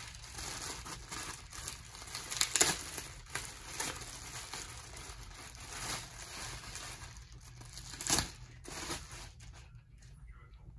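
Clear plastic bubble-wrap packaging crinkling and crackling as it is pulled off a radio-control transmitter, with two louder crackles, one about two and a half seconds in and one about eight seconds in.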